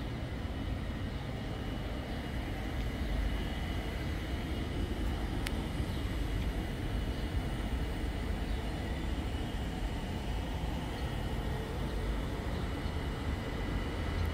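Steady low rumble of outdoor background noise, with no clear event standing out.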